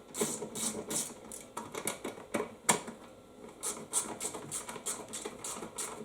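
Socket ratchet clicking in quick, short strokes while running in bolts on a mower's fuel tank: irregular at first, then about three clicks a second.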